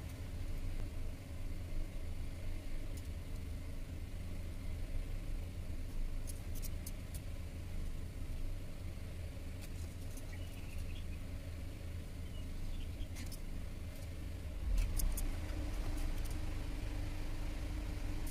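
A car engine idling with a steady low hum, heard from inside the cabin, with a few faint clicks and small handling noises over it.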